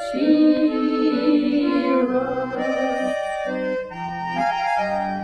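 Music: a Russian pop song carried by sustained electronic organ-like keyboard chords, with a woman singing the last word of the chorus line near the end.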